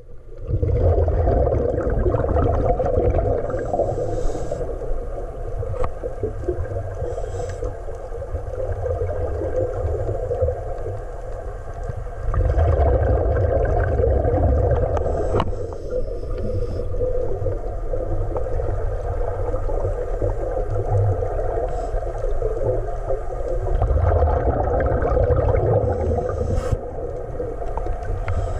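Underwater sound heard through a camera below the surface: a steady, muffled rumble of water with scuba exhaust bubbling, swelling louder near the start, about halfway, and near the end.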